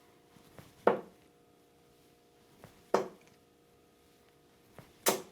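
Three steel-tip darts (Shot Viking Wolf, 25 g) thrown one after another and striking a dartboard, three sharp thuds about two seconds apart. Each is preceded a moment earlier by a faint click.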